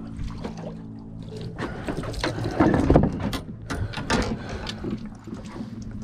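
Halibut being hauled over the side of an aluminum skiff and handled on its deck: a run of irregular knocks, thumps and clatters, loudest about three seconds in. A steady low hum sounds at first and stops after about a second and a half.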